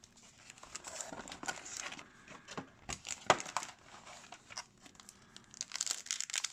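Hockey card pack wrappers being crinkled and torn open by hand: irregular crackling with a sharp snap about three seconds in. The packs are tough to open.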